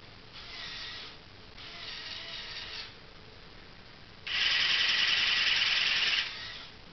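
Small electric motors of a motorised LEGO Technic wheel loader whirring through their gears in three separate runs, the third longest and loudest.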